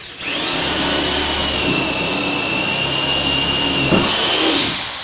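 PROMAKER 550 W hammer drill, in plain drilling mode at full speed, boring through a pine block with a wood bit. The electric motor runs up to a steady high whine. There is a sharp knock about four seconds in, and the whine begins to wind down near the end as the trigger is let go.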